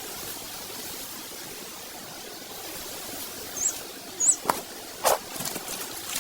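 Steady outdoor background hiss with two faint, brief high bird chirps, then a few sharp clicks or taps near the end.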